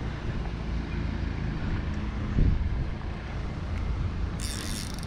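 Wind buffeting the microphone, a steady low rumble, with a brief high hiss near the end.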